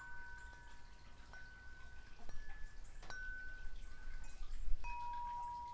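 Wind chimes ringing, single notes struck every second or so, each ringing on for a second or more as the next overlaps it.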